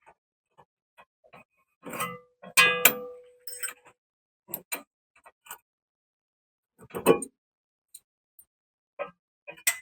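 Scattered clicks and metal clinks of hand tools working on a car's rear suspension link. A loud ringing metal clang comes near 3 s in, and a heavier knock about 7 s in.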